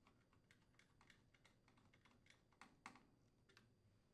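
Faint, irregular clicks, about three a second: a quarter-inch nut driver threading the mounting screw that secures the washer's line filter.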